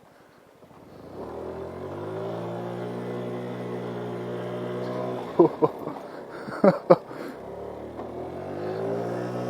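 GY6 50cc scooter's single-cylinder four-stroke engine nearly shutting off, then revving back up about a second in and running steadily, easing off and picking up again near the end. Between about five and seven seconds in, four short, sharp, loud sounds cut through the engine.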